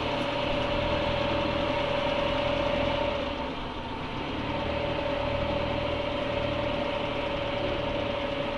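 Engine of a motor vehicle running steadily, heard from on board while riding, with a steady whine that drops out briefly about halfway through.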